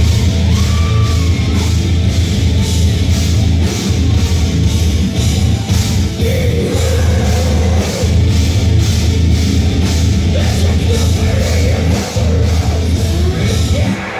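Metalcore band playing live at full volume, with distorted guitars, heavy bass and drums pounding out a steady beat of about three to four hits a second, heard from within the crowd.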